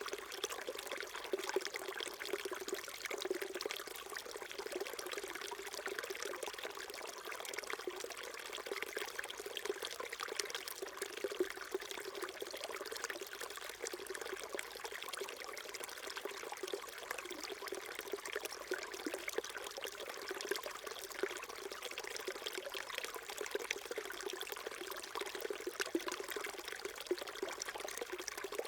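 Small stream flowing and trickling over stones, a steady babble of water with many small splashes.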